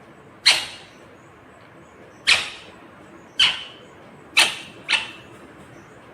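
Ringneck parakeet giving five short, loud, sharp calls at uneven intervals, the last two about half a second apart.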